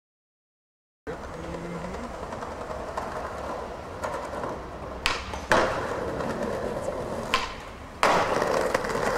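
Silence for about the first second, then skateboard wheels rolling on paving. Sharp clacks of the board snapping and hitting the ground come twice around the middle and once more a little later, and a louder, rougher rolling sets in near the end.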